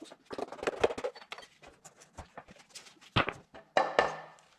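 Irregular scraping and clicking of a hand tool working metal, as the head stud thread holes in a Cummins engine block are cleaned out. There are two louder scrapes about three and four seconds in.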